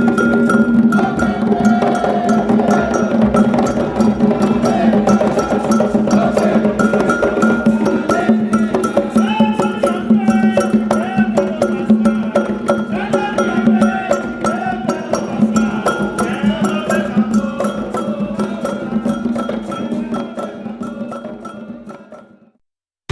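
Afro-Brazilian drumming: rapid hand-drum strokes under a wavering sung or played melody, fading out to silence near the end.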